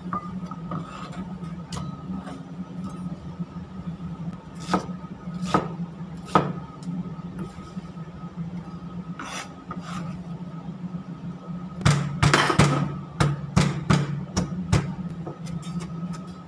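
Chef's knife chopping vegetables on a plastic cutting board: scattered single chops, then a quick run of rapid chops about twelve seconds in. A steady low hum runs underneath.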